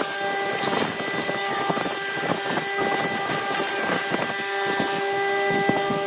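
Wood lathe running with a steady motor whine, a turning tool scraping and cutting the spinning bamboo-chopstick and epoxy blank with a hiss and scattered small clicks.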